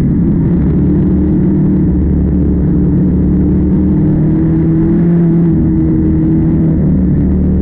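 Harvest machinery engine running steadily, a loud low hum whose pitch dips slightly and recovers about two-thirds of the way through.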